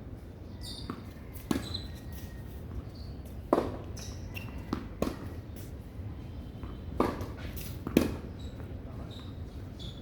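Tennis ball being struck by rackets and bouncing during a rally: a string of sharp pops every second or two, the loudest a little over three seconds in.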